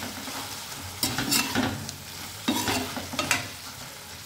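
Okra and masala frying in a pan with a steady sizzle, stirred with a few sharp scrapes against the pan.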